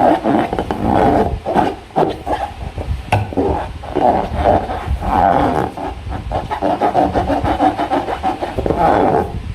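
Hands working slime and rubber balloons: continuous rubbing, squeaking and squelching, with a couple of sharp snaps about two and three seconds in.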